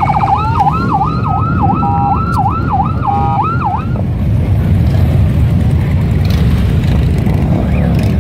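A siren wailing in quick up-and-down sweeps, about two a second, stopping about four seconds in, over the steady low rumble of a column of Harley-Davidson V-twin motorcycles riding past.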